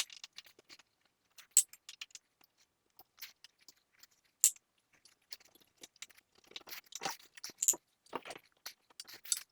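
Faint, scattered clicks and light scrapes of hand tools and metal fittings, with a few sharper ticks, as a boat's railing is unscrewed.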